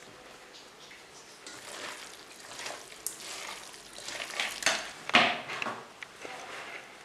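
A hand mixing raw minced chicken with spice powders in a stainless steel bowl: irregular wet squishing and rubbing against the metal, loudest about five seconds in.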